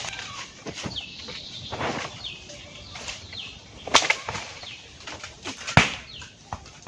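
Pomelo tree leaves and branches rustling as someone moves among them picking fruit, with several sharp snaps or knocks of wood; the loudest come about four and six seconds in.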